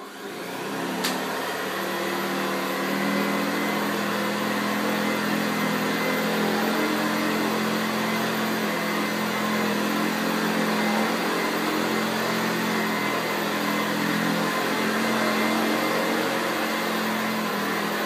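1979 Hoover U4082 commercial upright vacuum cleaner running on carpet: the motor comes up to speed over the first couple of seconds, then runs with a steady hum and whooshing hiss as it is pushed back and forth. A single sharp click comes about a second in.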